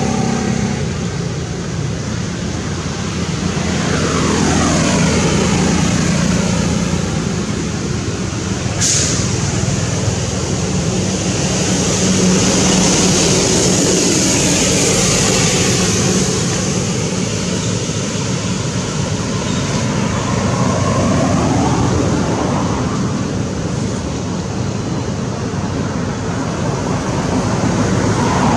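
Steady motor-vehicle noise that swells and fades as vehicles pass, with one sharp click about nine seconds in.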